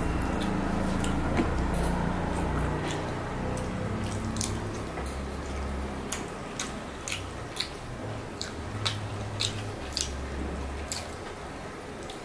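Fingers squishing and mixing rice with egg curry, and close-up wet chewing. From about four seconds in, sharp mouth clicks and smacks come every half second or so.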